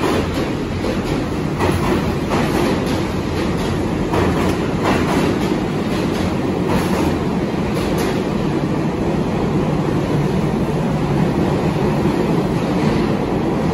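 New York City subway train of R68 cars running past along the platform and pulling away, a steady rumble with the wheels clacking over rail joints every second or so in the first few seconds.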